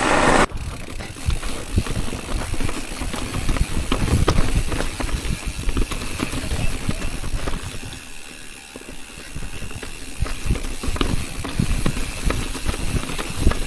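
Mountain bike riding over a rocky dirt trail: tyre noise and a low rumble, with frequent irregular knocks and rattles as it goes over rocks, and wind hissing on the microphone.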